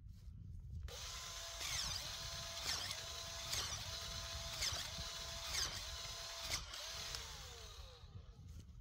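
Cordless electric auger drill boring into untilled soil. The motor spins up about a second in and its pitch dips and recovers roughly once a second as the bit loads up in the ground, then it winds down with a falling whine near the end.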